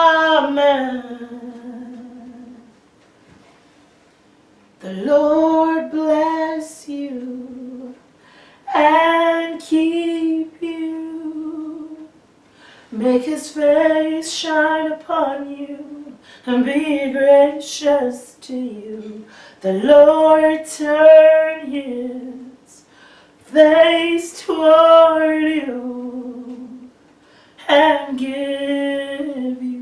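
A woman singing solo without accompaniment, in held phrases a few seconds long with short breaks between them.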